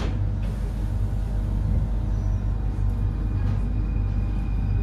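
Paris Métro train heard from inside the carriage: a steady low rumble and hum, with a faint high whine coming in about halfway through.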